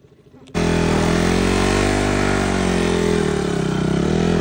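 Motorcycle engine running at a steady speed, cutting in abruptly about half a second in; its pitch dips briefly near the end, then picks up again.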